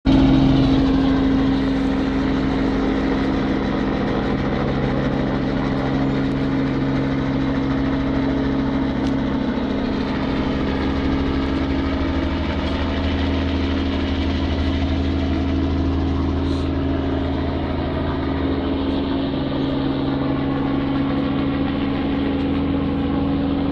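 An engine idling steadily, its low tones holding one pitch throughout.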